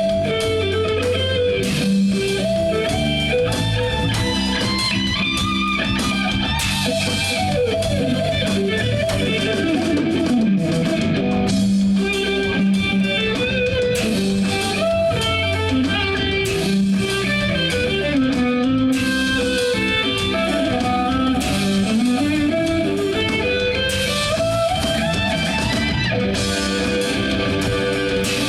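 Live band playing an instrumental piece led by electric guitar over bass. The guitar line slides up and down in long pitch sweeps, about ten seconds in and again in the second half.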